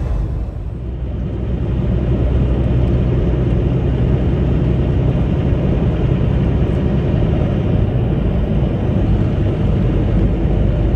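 Steady engine drone and road rumble inside the cab of a Kenworth T680 semi truck cruising at road speed.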